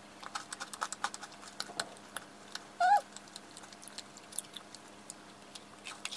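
Close-up chewing of a financier with a hard, crisp cheese-chocolate coating: many small crunches, thickest in the first two seconds and sparser afterwards. About three seconds in there is a brief hummed 'mm' from the eater, the loudest sound, over a faint steady hum.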